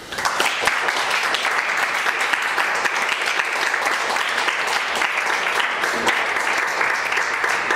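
Audience applauding: a steady round of many hands clapping that breaks out suddenly and keeps up without a pause.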